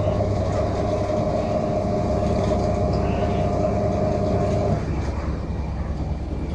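Whirlpool 16 kg washing machine in a high-speed spin, a steady hum and rumble with a higher whine that stops about five seconds in. The drum is a little off balance and the machine shakes, its suspension screws not yet tightened.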